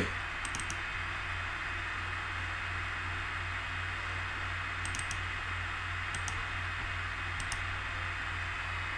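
Computer mouse clicking a few times, some in quick pairs like double-clicks, over a steady background hiss and low electrical hum.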